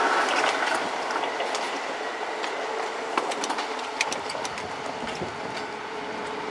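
Kintetsu 30000-series and 12200-series electric train passing over a level crossing, its wheels clicking over the rail joints. The sound slowly fades as the train moves away.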